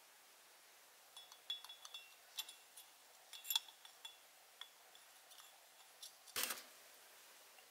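Stemmed glass cocktail glass being handled while it is prepared for a sugar rim: a scatter of light glassy clinks and ticks, some briefly ringing, beginning about a second in, and one louder, short scrape about six seconds in.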